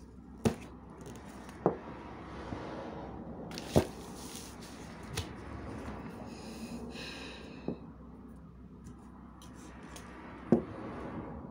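Handling noise on a craft table: paper crinkling, with about six sharp taps and knocks spread through it as objects are picked up and set down. There is a short high squeak about seven seconds in.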